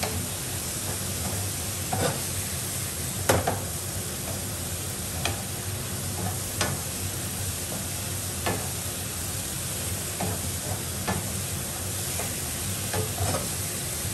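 Sliced mushrooms frying with a steady sizzle in a nonstick frying pan on a gas burner, stirred with a wooden spoon. The spoon knocks against the pan now and then, loudest about three seconds in.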